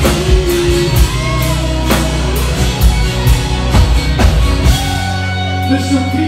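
Live rock band playing: electric guitars, bass and drum kit with regular drum hits. The deepest bass drops away about five seconds in.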